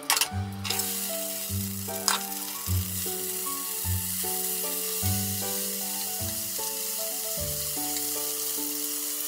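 Oil sizzling steadily in a frying pan as green beans and marinated mushrooms are tipped in and stirred with chopsticks, with a few sharp clicks near the start and once more about two seconds in as food goes into the pan.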